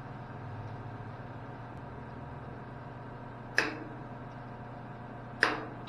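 Two sharp snips, about two seconds apart, as hand cutters clip the excess ends off the plastic zip-tie-style mounting rods of an oil-cooler mounting kit, over a steady low hum.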